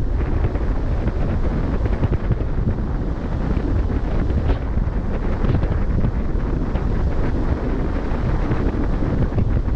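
Wind buffeting the microphone at the bow of a ship under way: a steady, gusty rush, heaviest in the low end, with the wash of the sea against the hull beneath it.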